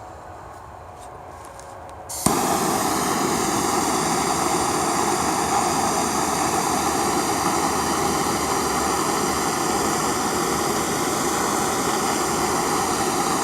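Gas torch flame running with a steady rushing hiss, switched on suddenly about two seconds in and shut off right at the end, as a sand and borax coating is torched onto a titanium billet.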